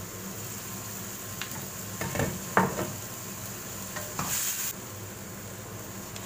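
Spatula stirring and scraping stir-fried bean sprouts in a nonstick wok, with a light sizzle. There are a few knocks against the pan, the loudest about two and a half seconds in, and another burst of scraping and hiss about four seconds in.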